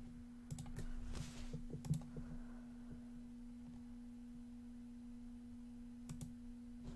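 Computer mouse clicking: three pairs of faint, sharp clicks, about half a second in, about two seconds in and near the end, over a steady low hum.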